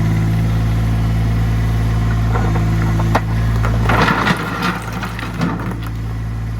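Diesel engine of a New Holland Workmaster 25S subcompact tractor running steadily at a constant speed. A click about three seconds in, then a short spell of clattering and rustling.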